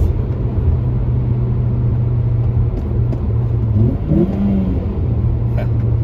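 A 2007 Acura TSX's 2.4-litre four-cylinder engine heard from inside the cabin, running at a steady pitch, with a brief rise in pitch about four seconds in before it settles back.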